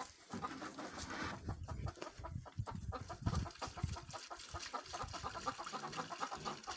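A flock of Kuroiler chickens clucking, with many short calls overlapping throughout.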